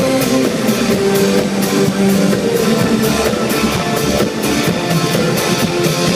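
Live pop band music played loud through an arena sound system, with guitar and drum kit, recorded from the audience.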